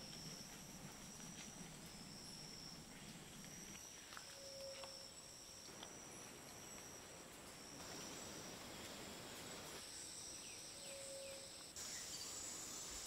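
Faint tropical forest insects calling: a repeating high-pitched call about a second long over a steady higher whine, with a few short low whistles.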